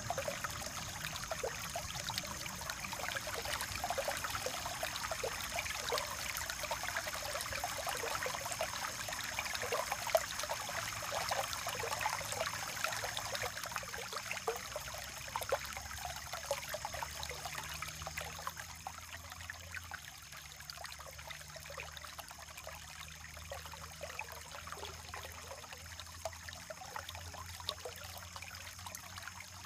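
Creek water trickling and babbling over stones, louder in the first two-thirds and softer after that, with a faint steady high-pitched whine behind it.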